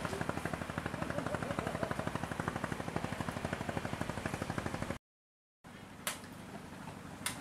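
An engine running with a fast, even knocking over a low hum. It cuts off abruptly about five seconds in. After a moment of silence, quieter background follows with two sharp clicks.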